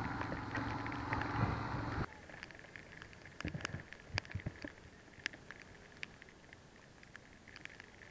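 Steady motorcycle riding noise, engine and wind together, that cuts off suddenly about two seconds in. After that, a faint background with scattered light ticks of rain striking the camera.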